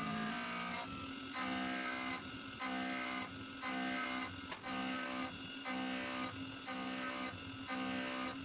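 CNC thread-milling cutter cutting an internal thread in a steel block. The cutting sound is a ringing set of steady tones that pulses on and off about once a second as the tool orbits the bore.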